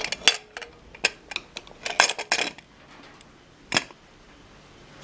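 Aluminium pressure cooker lid being fitted and twisted shut: a run of metal clinks and knocks over the first two and a half seconds, then one sharp click about a second later.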